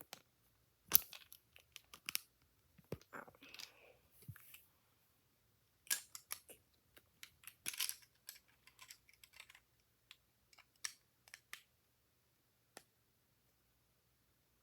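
Plastic Lego pieces clicking and rattling as they are handled and pressed together: irregular sharp clicks, a loud one about a second in and a busy run around the middle, then only a single faint click near the end.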